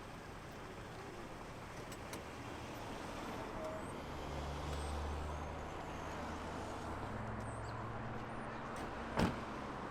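Outdoor street sound with a car engine running, its low hum swelling in the middle, and one sharp click near the end.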